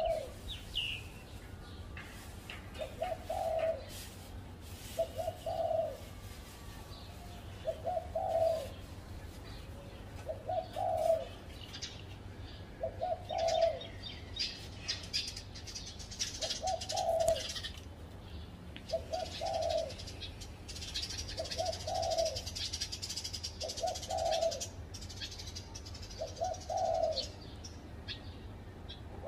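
Spotted dove cooing: the same short low phrase repeated about every two and a half seconds. Other small birds chirp higher up behind it.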